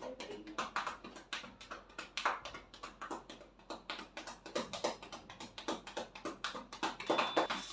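Hands rubbing and working through long hair at the scalp: a quick, irregular series of soft clicks and crackles, several a second.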